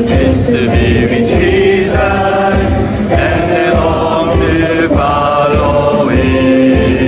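Gospel-style music with voices singing over a steady beat.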